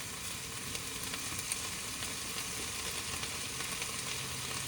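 Food sizzling steadily in a frying pan, with light crackling.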